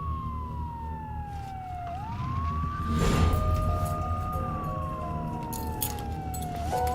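Siren wailing: a single tone falls slowly, then sweeps quickly back up and holds, twice, over a low steady rumble. A brief rush of noise about three seconds in is the loudest moment.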